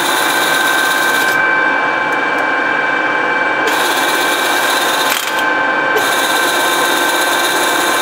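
Toolmex engine lathe running with its gear train engaged, a steady mechanical drone with a high steady whine on top; the loudness dips briefly about five seconds in.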